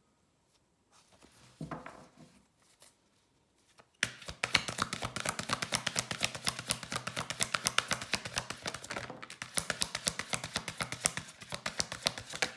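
A deck of oracle cards being shuffled by hand: a fast, continuous run of papery clicks and slaps that starts about four seconds in, after a few soft card-handling rustles.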